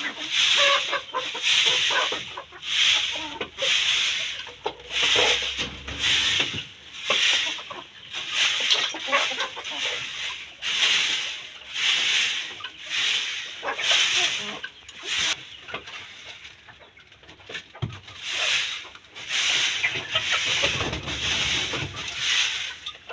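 Straw bundle broom sweeping a gritty dirt and gravel floor: repeated brisk rustling strokes, about one and a half a second, with a short pause around two-thirds of the way through.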